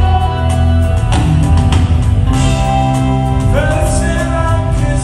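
Live band music from a concert hall audience: drums, bass, guitars and keyboards playing steadily, with a voice singing over them in the second half.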